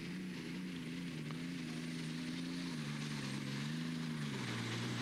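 Modified pulling tractor's V12 engine power running hard under full load. The engine note wavers and sags gradually lower as the tractor bogs down near the end of its pull.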